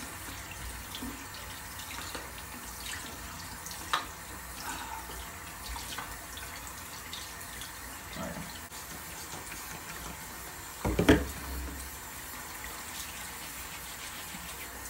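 Bathroom sink faucet running a thin stream while hands are rubbed and washed under it. A few faint clicks, and one short low thump about eleven seconds in.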